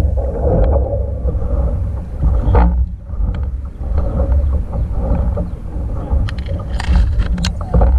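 Double-bladed kayak paddle dipping and splashing in creek water as a kayak is paddled, over a steady low rumble of water on the hull. Sharper splashes come about two and a half seconds in and several more near the end.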